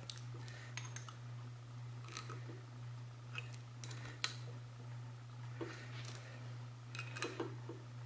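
Light metallic clicks and taps, irregularly spaced, of a hex key working the set screws that center the nozzle in a propane burner body. A steady low hum runs underneath.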